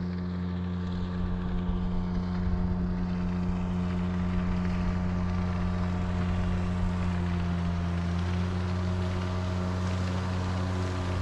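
Small four-stroke outboard motor (Mercury F 3.5) running steadily under way, a constant droning tone over the hiss of water and wind.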